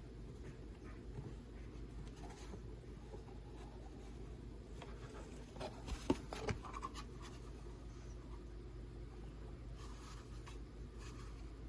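Faint scratching and light clicks, like small things being handled, with a few louder clicks about six seconds in, over a low steady hum.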